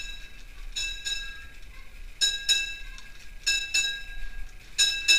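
Bright metallic clinks that ring briefly like a small bell, struck in pairs, four pairs evenly spaced about a second and a half apart.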